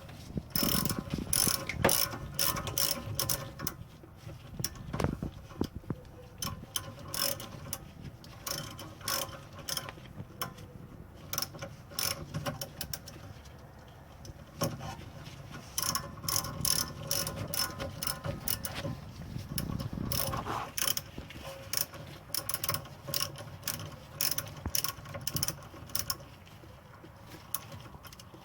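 Socket ratchet wrench clicking in runs of rapid strokes with short pauses between, as the brake-line bolt on a rear brake caliper is run down and snugged.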